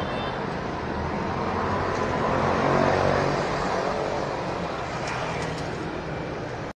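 Street traffic noise from motor vehicles, swelling as a vehicle passes about three seconds in and then easing off.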